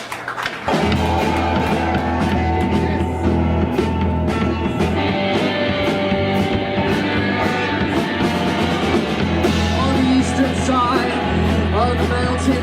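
Live rock band playing: after a thin, quieter start, the full band with drums, bass and guitar comes in loud under a second in and keeps going steadily.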